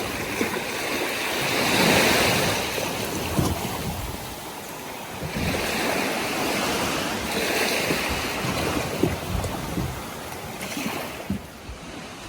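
Ocean surf: waves breaking and washing in, swelling louder several times, with wind buffeting the microphone.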